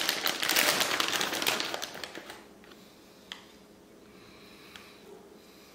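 Plastic bag of shredded cheese crinkling and rustling as a hand digs into it, for about the first two seconds; after that it goes quiet apart from a couple of faint ticks.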